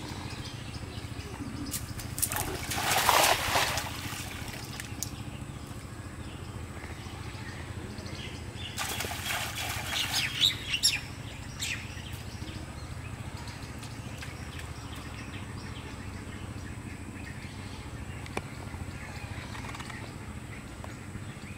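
Water splashing in a pond: a cast net landing on the surface in a brief splashing rush about two to four seconds in, then more splashing with a few sharp slaps around nine to eleven seconds in. A steady low hum runs underneath.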